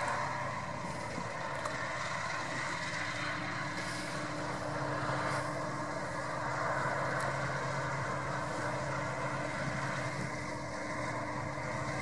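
CLAAS Lexion 570+ combine harvester running steadily while harvesting wheat: a steady engine drone under the broad noise of the working machine.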